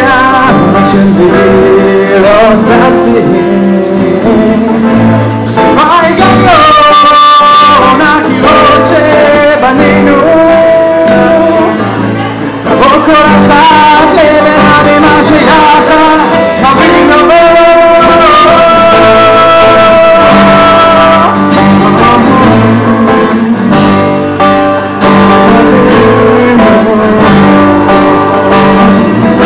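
Live acoustic band: a man singing with several strummed acoustic guitars.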